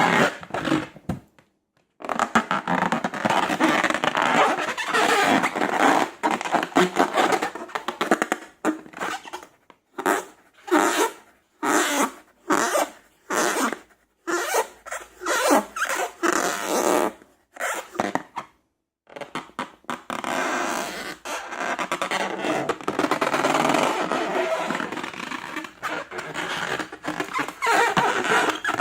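Slime being squeezed and kneaded, making wet squelching and squishing sounds. There are longer continuous stretches near the start and end, and a quick run of short separate squishes in the middle.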